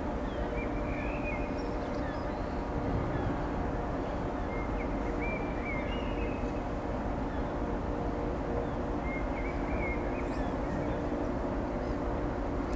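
Steady low machinery hum from a large cruise ship, a rumble with several held tones, with short, faint bird chirps scattered through it.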